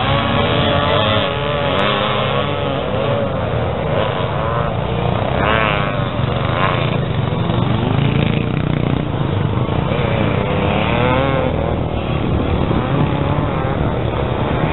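Several vintage enduro motorcycles racing, their engines revving in overlapping whines that rise and fall as the riders go past.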